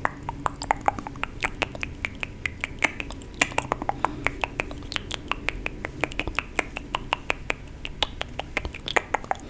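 A rapid, uneven run of sharp mouth clicks, tongue and lip clicks made close to the microphone, several a second.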